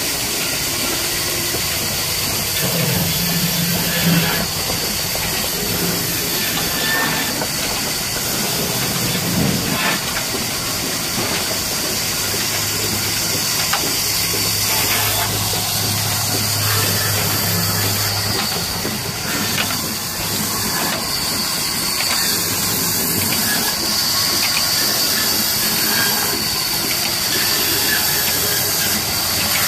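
Old diesel engine's belt-driven line shaft and pulleys running steadily, driving a band saw. A constant high hiss sits over a low hum.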